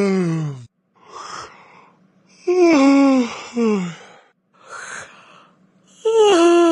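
Vocalised yawns, each a long groaning note that slides down in pitch, with breathy in-breaths between them. One yawn tails off in the first second, another comes about two and a half seconds in with a short falling second note, and a third starts about six seconds in.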